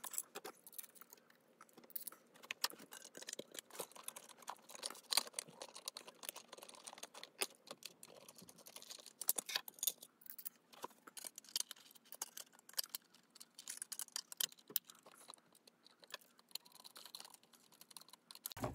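Irregular light clicks, taps and rattles as the chassis of a Triang Class 37 OO-scale model locomotive is handled and fitted into its body shell.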